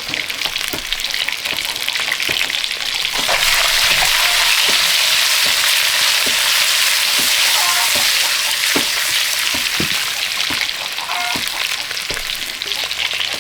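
Food sizzling and crackling in hot oil in a cooking pan, with scattered sharp clicks and knocks. The sizzle swells about three seconds in and eases off near the end.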